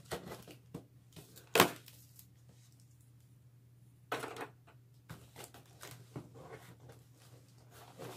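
Cardboard shipping box being opened by hand with a pointed vinyl weeding tool: irregular clicks, scrapes and knocks of tool and cardboard, with one sharp knock about a second and a half in and a short rip about four seconds in.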